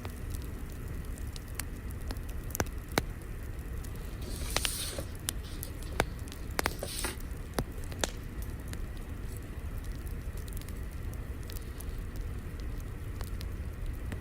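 Wood fire crackling, with scattered sharp pops over a steady low rumble. There are two short hissing bursts, about four and a half and seven seconds in.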